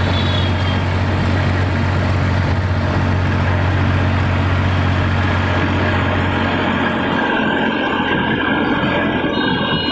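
Eicher 480 tractor's diesel engine running under way, a steady low drone. About seven seconds in, the drone slackens and becomes less even.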